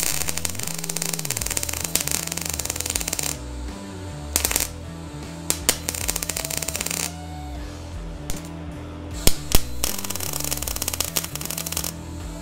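MIG welder crackling and hissing as it lays stitch welds on a steel car body panel, in several runs with pauses: a long one at the start, short ones in the middle and another near the end. Background music plays underneath.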